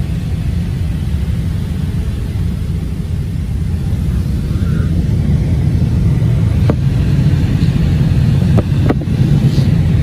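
Steady low rumble of an airliner's engines and airflow heard inside the passenger cabin on approach. It grows a little louder about halfway through, and a few faint clicks come near the end.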